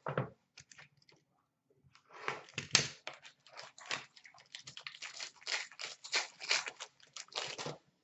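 Trading-card pack wrapper crinkling and tearing as a pack of hockey cards is ripped open. The crackling starts about two seconds in and carries on as a dense run of crackles until near the end.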